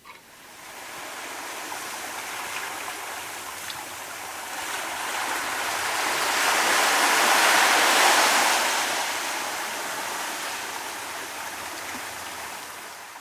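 Torqeedo Travel 1103 electric outboard running, heard mostly as its propeller churning water with little motor whine, swelling to a peak about two-thirds of the way through and then easing off.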